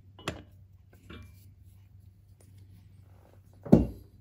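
Tool-handling knocks as a steel bearing race and driver are set onto a crankshaft bearing sleeve in an aluminium engine case: a light click near the start, a fainter one about a second in, and a heavy thump near the end.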